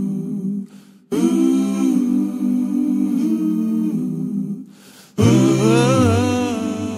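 Voices humming a cappella in held chords, in three long phrases with brief breaks about a second in and about five seconds in. A lower voice joins in the last phrase.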